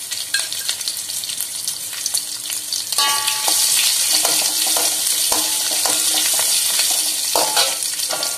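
A tempering of mustard seeds, cumin, dried red chillies, green chillies and ginger sizzling in hot oil and ghee in a metal kadai. From about three seconds in, a metal ladle scrapes and clinks against the pan as it is stirred, and the sizzling gets louder.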